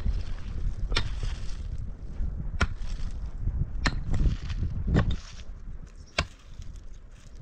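A hand tool striking repeatedly in a steady rhythm: five sharp chopping hits, about one every second and a quarter.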